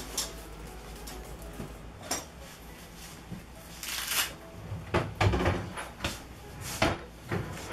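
A handful of separate knocks and clunks, about six over several seconds, with the loudest cluster around five seconds in, over a low steady hum.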